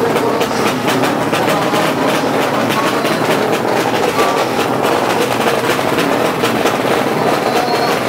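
Drag-racing motorcycle engines running loudly, a steady, dense, rapid rattle with no clear rise or fall in pitch.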